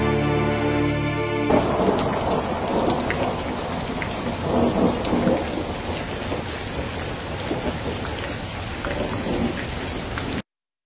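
A held chord of film-score music cuts off about a second and a half in. Steady heavy rain with rolling rumbles of thunder follows, then stops abruptly just before the end.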